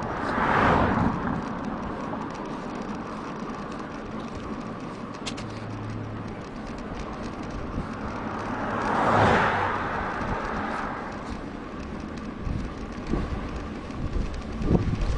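Two vehicles passing the bicycle, each a swell of tyre and road noise that rises and fades, one about a second in and one about nine seconds in. Underneath is steady wind and rolling noise on the bike-mounted action camera, with a few low knocks near the end.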